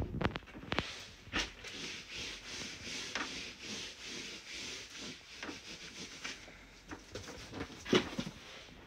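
Hands rubbing and patting the textured fabric cover of a pillow, a steady scuffing hiss broken by soft pats. About eight seconds in, a louder knock as a cardboard box is picked up.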